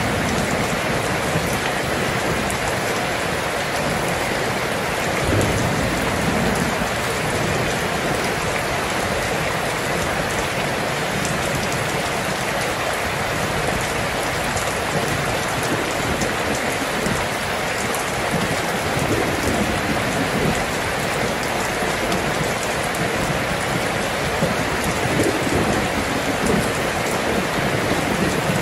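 Steady rain falling: a dense, even hiss of drops that keeps up without a break.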